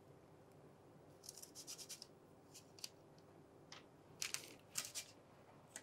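Small fluted metal cookie cutter pressed through soft shortbread dough onto baking paper, with faint scraping and paper rustling in two short bouts and a few light ticks as the cut-out centres are lifted away.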